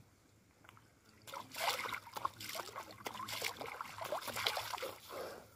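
Water splashing and dripping as cupped hands scoop it from a canal and throw it onto a face, with spills falling back into the water. It is quiet for about the first second, then a run of uneven splashes lasts until near the end.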